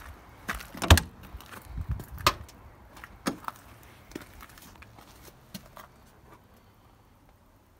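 1985 VW Beetle door being opened by its push-button handle: a string of clicks and knocks from the handle and latch, the loudest about a second in, with a few lighter knocks after and quiet by about six seconds in.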